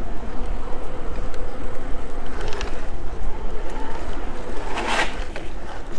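Wind rushing over the microphone of a rider on a moving e-bike, a steady low rumble with the hiss of tyres on paving. A short, louder rush of noise about five seconds in.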